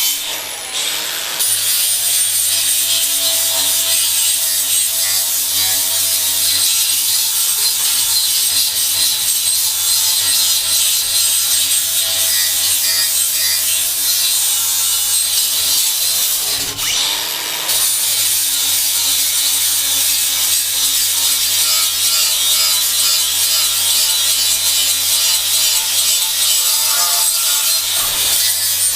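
Milwaukee cordless angle grinder running with an abrasive sanding disc pressed against a surface, a steady grinding rub over the motor's hum. The disc briefly lets off about a second in and again about halfway through, the motor pitch dipping and recovering before the grinding resumes.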